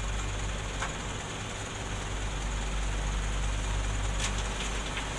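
Dump truck engine idling steadily with a low hum, while the raised tipper bed is lowered after dumping its load.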